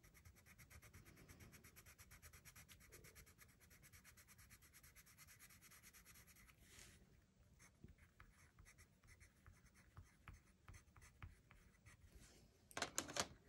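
Mondo Llama colored pencil scribbling back and forth on paper to lay down a swatch: faint, rapid, even strokes for about the first seven seconds, then slower scattered strokes, with a few louder scratches near the end.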